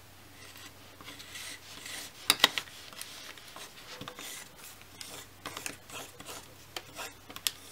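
Thin plastic piping bag filled with batter being rubbed and pressed flat against a table, a soft rustling with a couple of sharp clicks a little past two seconds in.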